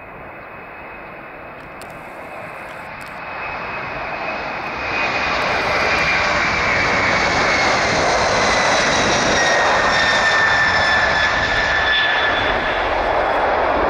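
Airbus A300-600 freighter's twin turbofan engines at takeoff power during the takeoff roll, growing steadily louder as the aircraft approaches, with a jump in loudness about five seconds in. High whining tones ride over the roar and slowly fall in pitch as it goes by.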